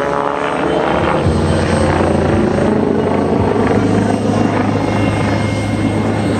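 MBB Bo 105 helicopter flying aerobatic manoeuvres overhead: a steady loud sound of its four-blade rotor and twin turboshaft engines, the low rotor tone shifting slightly in pitch as it manoeuvres.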